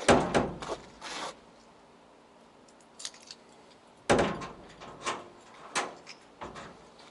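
Clanks and rattles of metal objects being handled, a loud clatter at the start and another about four seconds in, with lighter clicks between and after.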